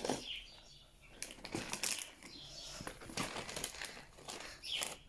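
Plastic wrapping of a bag of wood pellets being pulled open and handled, rustling and crinkling in irregular bursts with short pauses between them.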